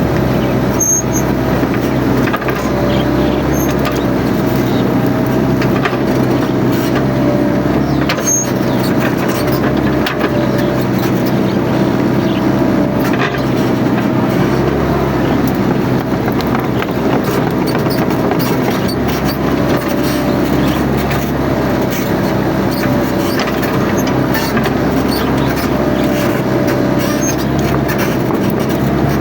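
Mini excavator's diesel engine running steadily under work, with a wavering whine over it and scattered light clicks.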